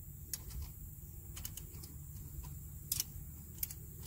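Scattered, irregular faint metal clicks and taps from an X-Chock wheel stabilizer being fitted and adjusted between a camper's tandem tires.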